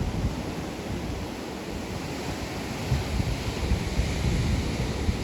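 Ocean surf breaking on the beach, a steady wash of noise that swells again a little past halfway. Wind buffets the microphone with low rumbling gusts throughout.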